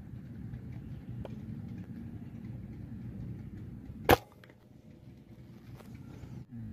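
A single air rifle shot, one sharp crack about four seconds in, over a low steady background rumble that drops away after it.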